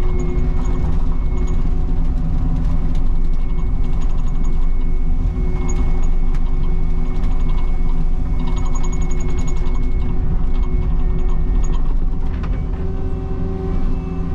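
Cat 306 mini excavator's diesel engine running steadily, with scattered light clicks and a brief dip with a few knocks about twelve seconds in.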